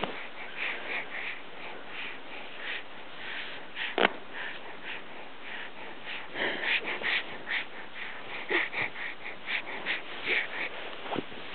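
A baby with a pacifier in its mouth breathing through its nose close to the microphone: short, quick noisy breaths in runs of several a second. There is one sharp click about four seconds in.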